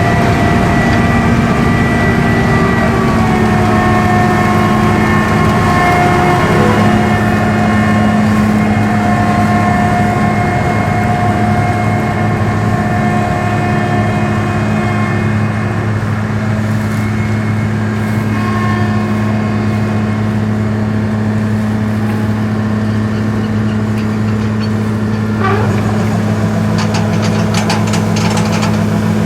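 John Deere 7720 Turbo combine's 7.6-litre six-cylinder diesel running steadily under harvesting load, with a steady whine above the engine note. A few clicks and rattles come near the end.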